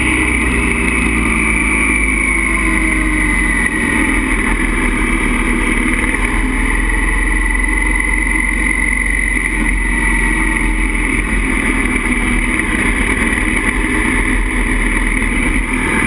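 Motorcycle engine running at steady road speed, its pitch drifting slowly up and down through the curves, under heavy wind rush on the microphone.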